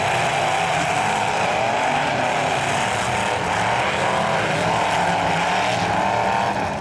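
Several demolition derby trucks' engines revving hard together, their pitch rising and falling as they drive and ram.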